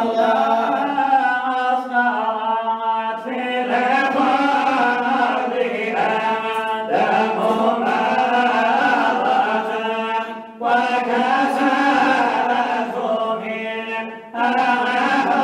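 Men chanting a Sufi devotional qasida (samaa) without instruments. Long, drawn-out sung phrases with short breaks between them, about every three to four seconds.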